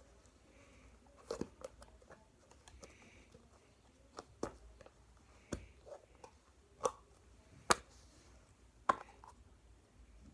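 Plastic Play-Doh tub and its lid being handled: a scatter of irregular sharp plastic clicks and knocks, the loudest about three-quarters of the way through.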